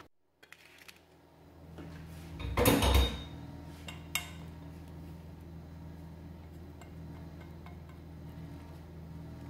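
Metal cookware being handled: a loud clatter about two and a half seconds in, a single sharp click about a second later, then a steady low hum.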